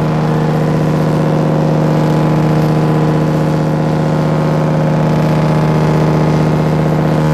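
A cruise ship's horn sounding one long, steady blast on a single low note, cutting off at the end.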